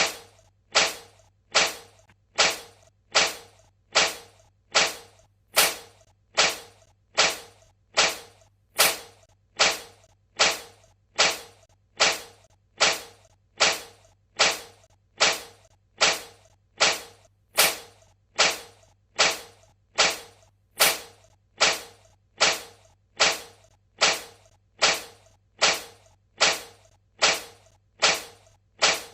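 Cat sneezing over and over: short, sharp sneezes repeated at a steady, even pace, more than one a second.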